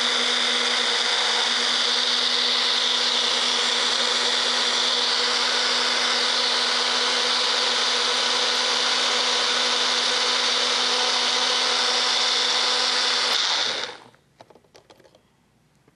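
Magic Bullet personal blender motor running steadily with a high whine, blending a fruit-and-yogurt smoothie, then cutting off abruptly about two seconds before the end. A few faint clicks of the cup being handled follow.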